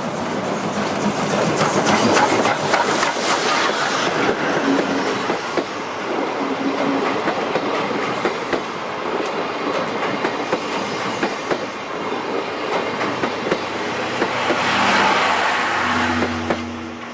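A train hauled by the D51 498 steam locomotive passing at speed: a steady rush with rapid clicks and clatter of wheels over rail joints. It swells once more about three-quarters of the way through, then starts to fade near the end.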